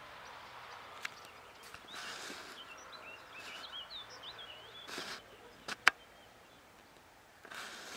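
Birds chirping faintly in a cluster of short rising and falling calls over a light steady hiss, with a few sharp clicks, the loudest about six seconds in.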